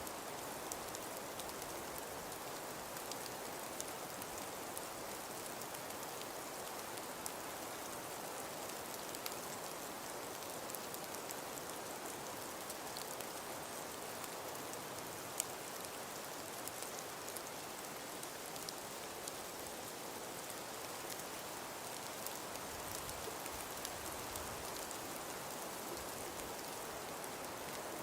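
Snow falling in wind: a steady hiss with many fine ticks of flakes or grains hitting a surface, and one sharper tick about halfway through.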